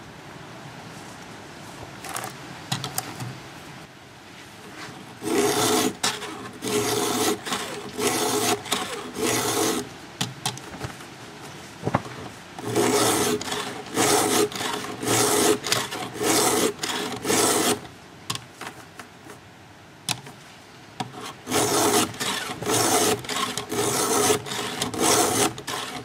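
Stihl 2-in-1 EZ file, two round files and a flat file in one holder, rasping back and forth over the cutters and depth gauges of a 3/8 low-profile Picco saw chain. The strokes come in three runs of about three strokes every two seconds, with short pauses between runs.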